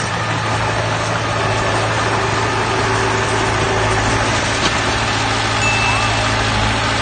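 Diesel engine of heavy earthmoving machinery, a bulldozer or dump truck, running steadily with a continuous low hum. A brief high tone sounds about six seconds in.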